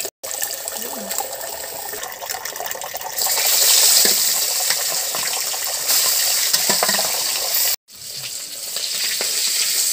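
Fish frying in hot oil in a steel wok, a steady sizzle that grows louder about three seconds in, with light clinks of a metal spatula as the fried pieces are lifted out. The sound cuts out suddenly for a moment twice.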